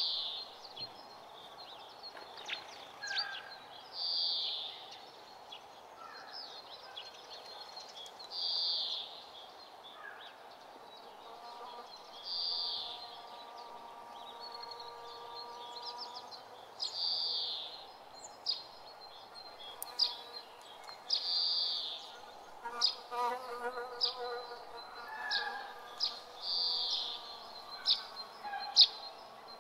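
Outdoor nature ambience: a short call, about a second long, repeats about every four seconds over faint birdsong. In the second half there are scattered sharp crackles.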